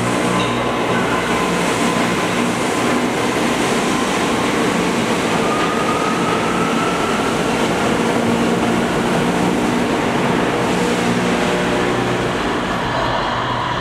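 New York City Subway R179 train pulling out of an underground station, with a steady running rumble of wheels on rail and a faint motor whine that slowly rises in pitch as it picks up speed.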